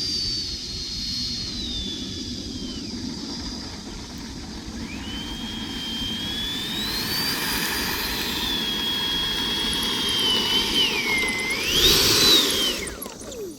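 High whine of the 70 mm electric ducted fan on an FMS F/A-18 RC jet, rising and falling with the throttle. It drops away about three seconds in, climbs back two seconds later and holds, dips, then peaks loudest near the end before falling away steeply.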